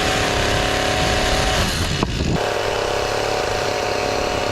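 STIHL chainsaw engine running at high revs, loud and steady. Its pitch drops briefly about two seconds in, then climbs back to full speed.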